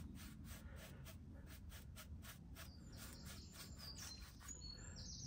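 Paintbrush laying undercoat onto the cut edge of a wooden tabletop: faint, quick brush strokes repeated several times a second.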